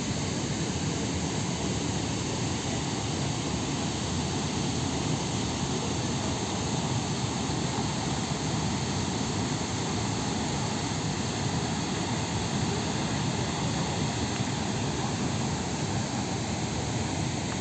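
Steady roar of Chitrakoot Falls on the Indravati River, a continuous rushing of falling water with a deep rumble.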